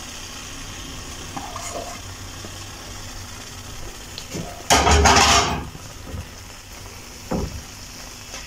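Potato and semolina mixture sizzling softly in oil in a frying pan as herbs are scattered on, with a loud rasping burst about a second long around the middle, and a spatula starting to stir the mixture near the end.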